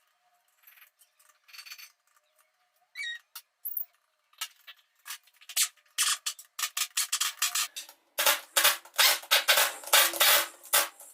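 Metal hand tools and engine parts clinking and scraping: scattered clicks and rubbing at first, then a dense run of rapid metallic clicks and clatter from about eight seconds in.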